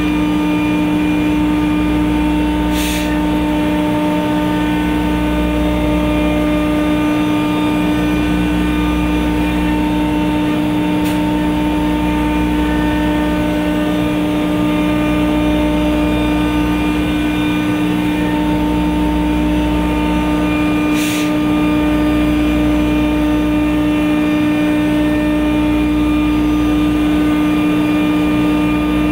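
CNC router spindle running with a steady high whine as it routes a wooden speaker baffle, under a low rumble that swells and fades about every three and a half seconds. Two short hisses come through, one a few seconds in and one about two-thirds of the way through.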